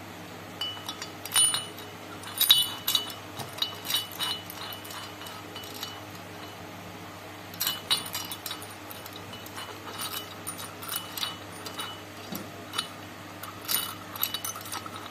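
Light metallic clinks and taps as a steel bolt, nut and sprocket are fitted into an aluminium motorcycle cylinder head to make a home-made camshaft-bearing puller. The clinks come in irregular clusters, several with a short ring.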